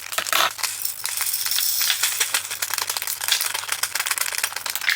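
Small resin diamond-painting drills pouring and rattling into a plastic storage container: a dense stream of tiny clicks with a hissing run of pouring in the middle.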